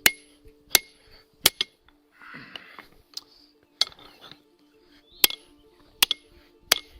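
Blacksmith's hand hammer striking hot steel on an anvil while drawing out a forged axe head: about seven sharp blows roughly every 0.7 s, broken by a pause a couple of seconds in that holds a brief rushing noise.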